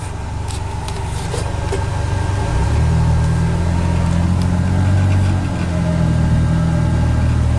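John Deere XUV835M Gator utility vehicle's engine running, heard from inside its enclosed cab; the low engine drone grows louder and steadier about two and a half seconds in, as it takes more throttle.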